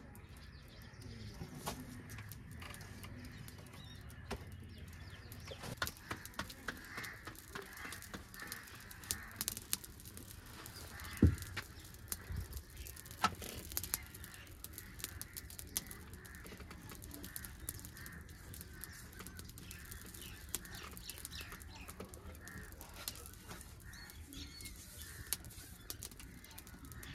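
Birds calling in the background, with scattered clicks and knocks, the loudest a sharp knock about eleven seconds in.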